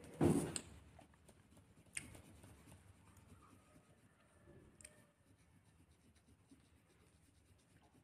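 Colored pencil scratching softly on paper as it shades in a drawing. A brief louder noise comes just after the start, and faint ticks come about two and five seconds in.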